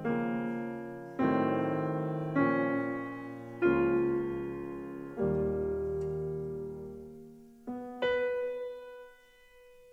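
Slow solo piano music: chords struck roughly every second or so, each left to ring and fade. Near the end it thins to a single quiet note that dies away.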